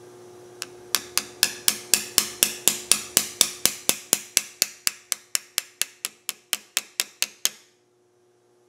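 A hammer lightly tapping a pin punch to drive a plastic locking pin into a Mercury outboard fuel pump body. One tap comes first, then a steady run of about four taps a second that stops suddenly near the end.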